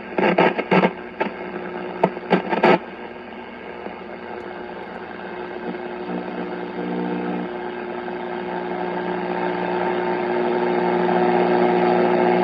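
1939 Philco 40-120 tube radio's speaker giving out static on the 160-meter band: several sharp crackles and pops in the first three seconds, then a steady hiss and hum that slowly grows louder toward the end.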